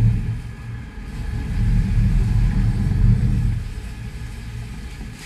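Low rumble of a sportfishing boat's engines and churning wake water in heavy seas, swelling twice and easing off near the end.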